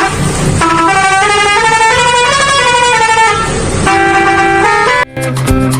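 Vehicle horns sounding in a run of held tones that step and slide in pitch, like a musical horn tune; a brief drop about five seconds in, then music with a beat starts.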